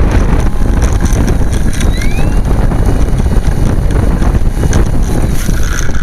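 Strong wind buffeting the microphone, a loud, uneven low rumble, with a faint rising whine about two seconds in.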